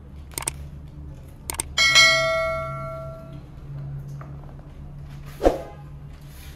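Subscribe-button sound effect: a couple of mouse clicks, then about two seconds in a bright notification bell ding that rings out and fades over about a second and a half. Near the end comes a single short thump as papers are handled on the desk.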